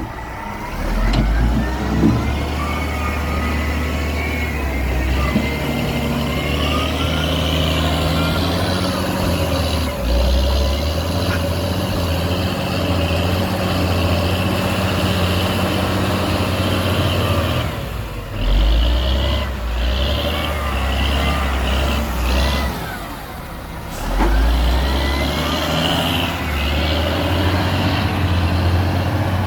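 Heavy diesel engine of earthmoving machinery running steadily, with the revs surging several times, about a second, ten, eighteen and twenty-four seconds in. Faint high squeals rise and fall over the engine.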